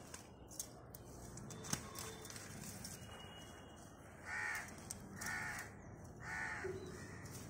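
A crow cawing three times, about a second apart, each caw harsh and about half a second long. In the first two seconds a few sharp snaps come from leaves and stems being plucked by hand, the loudest about two seconds in.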